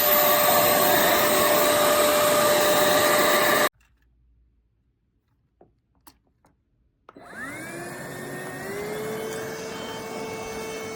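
Cordless stick vacuum running with a steady whine, cut off abruptly a little under four seconds in. After a few seconds of near silence with a couple of faint clicks, a vacuum motor starts up about seven seconds in, its whine rising and then settling to a steady pitch.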